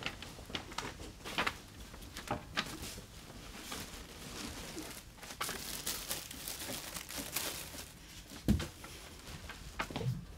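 Light rustling and crinkling with scattered small clicks as a Christmas stocking hanging on a door handle is handled and filled, with one louder thump about eight and a half seconds in.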